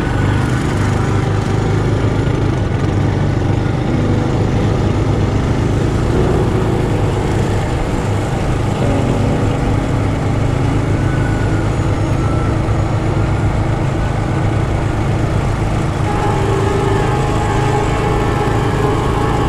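Small minibike engines running steadily while riding at cruising speed, the rider's Trailmaster Hurricane close under the microphone and a second minibike alongside. The engine note shifts slightly about halfway through and again near the end.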